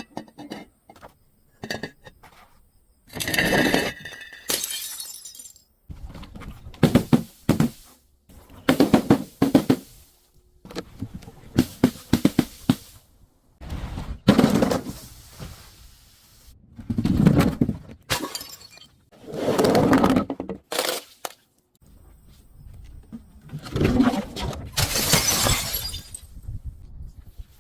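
A series of about nine separate crashes and crunches as objects are smashed and crushed, including glass bottles shattering with tinkling shards.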